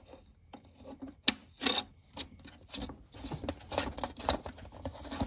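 Hard plastic rubbing and clicking as a plastic retaining ring is turned on by hand around the cord at a tower fan's base: a sharp click a little over a second in, then a run of scraping rasps in the second half.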